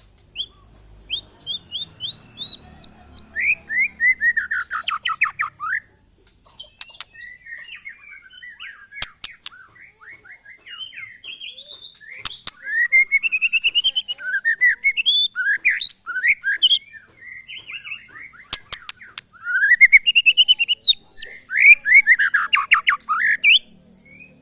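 White-rumped shamas (murai batu) singing in long bursts of rapid falling notes and high chatter, with a few sharp clicks. The song is loudest near the end.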